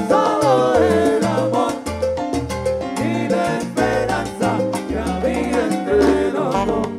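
Live salsa band playing: congas and timbales over a bass line, with a bending melody line on top that fits a lead singer's voice.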